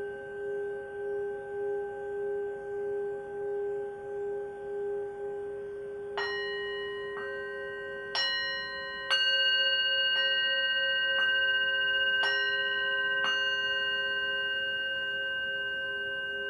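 A brass singing bowl sings as a mallet is rubbed around its rim, giving a steady ringing tone that pulses in loudness. From about six seconds in, eight bell-like strikes come about once a second and ring on over the bowl's tone.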